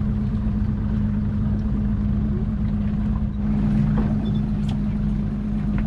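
Boat motor running steadily with a constant hum and low rumble; a second, lower tone joins about three and a half seconds in.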